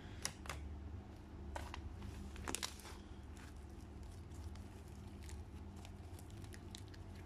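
Thick, fluffy foam-bead slime being stretched, folded and squeezed by hand, giving faint scattered crackles and clicks, a few sharper ones in the first few seconds, over a low steady hum.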